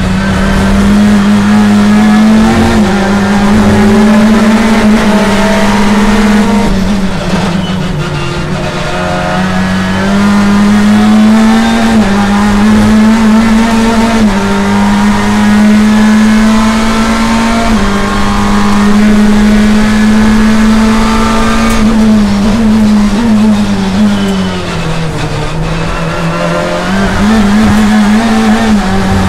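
Chevrolet BTCC touring car's 2.0-litre turbocharged four-cylinder engine racing at high revs, heard from inside the cockpit, with quick gear changes. Its pitch falls twice as it brakes and downshifts for corners, about eight seconds in and again around twenty-five seconds, then climbs again on the throttle.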